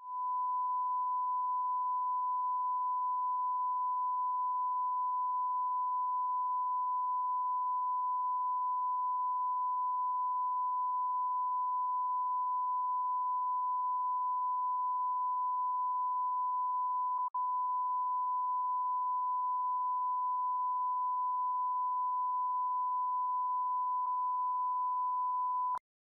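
Television line-up test tone: the steady, single-pitch reference tone (1 kHz) sent with colour bars while a channel is off air for maintenance. It drops out for an instant about two-thirds of the way through and cuts off abruptly near the end.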